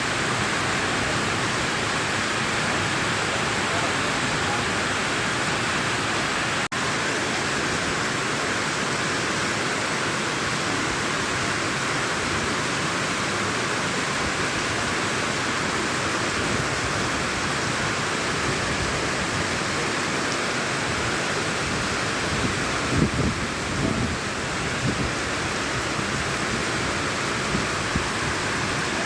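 Heavy rain falling in a steady, even hiss. It drops out for an instant about seven seconds in, and a few low bumps come about two-thirds of the way through.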